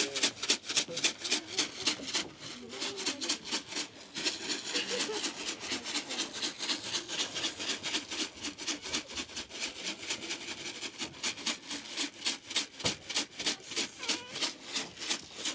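Dry cat food rattled hard and fast in a handheld container, several shakes a second with brief pauses, calling the cats to be fed.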